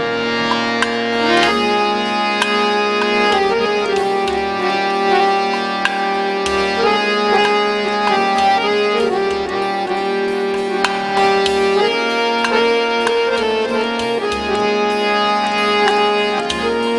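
Live world-music band playing: hand drumming on a goblet drum, with quick, crisp strokes, under a melody of long, held reedy notes from a harmonica. A low beat pulses about once a second beneath them.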